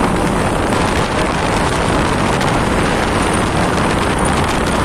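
Steady wind rush over the microphone and road noise from a Honda PCX scooter riding at speed.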